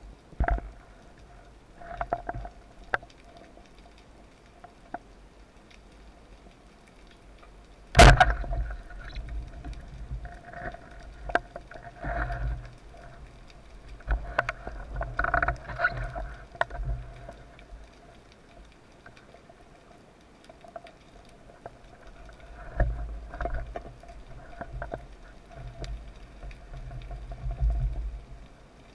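Underwater recording: a single sharp crack about eight seconds in, the speargun firing, followed by scattered knocks, scrapes and low water thumps as the speared barracuda is fought and handled.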